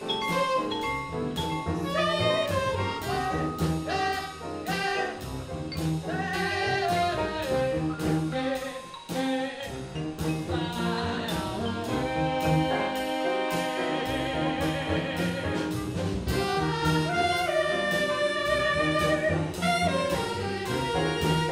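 Background music with a steady beat and a moving melody.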